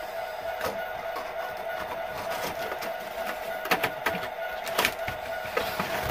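A cardboard model-train box and its plastic insert being handled and slid open, with scattered sharp clicks and rustles, over a steady hum.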